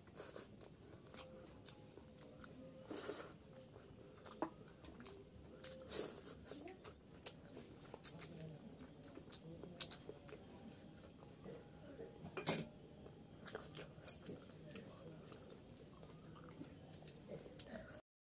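Close-up eating sounds of a person chewing rice and curry eaten by hand: wet chewing and lip-smacking with many short, sharp clicks.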